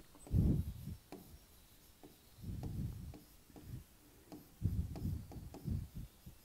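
Writing on a blackboard: soft scraping strokes with small ticks as the writing tool touches the board, in three short bursts with pauses between.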